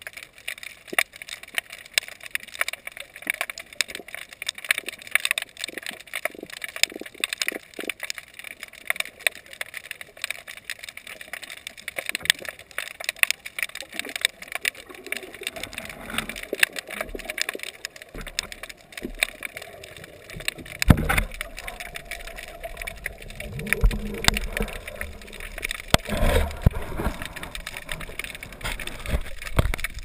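Underwater crackling, a dense run of sharp clicks with no break. From about twenty seconds in, low rumbles of moving water come and go.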